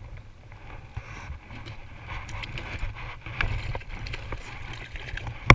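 Wind buffeting the microphone as a low, steady rumble, with scattered small knocks and rustles from handling a plastic bucket and its lid. One sharp, loud snap comes near the end.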